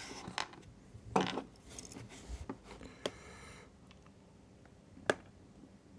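A few small, sharp, separate clicks and clinks of small hard parts being handled: one just after a second in, and others near three and five seconds.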